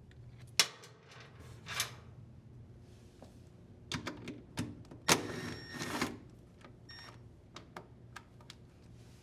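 Short bursts from a cordless impact driver backing out the washer's belt cover screws, the largest cluster a couple of seconds long about halfway through, with scattered sharp clicks as the screws and cover are handled.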